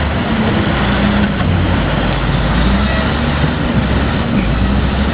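Heavy construction machine's engine running steadily, a low drone under dense mechanical noise.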